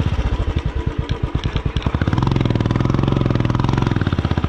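Royal Enfield single-cylinder motorcycle engine running with an even, rapid thump, revved up and held for about two seconds in the middle before dropping back.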